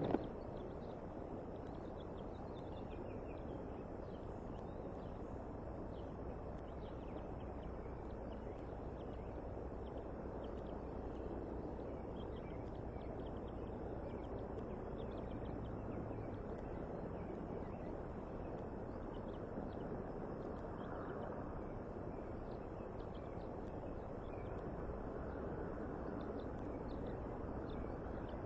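Steady outdoor background noise on a nest-cam microphone, with faint, short, high bird chirps scattered throughout.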